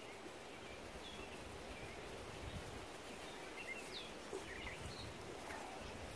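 Faint steady outdoor background noise with a few scattered short bird chirps.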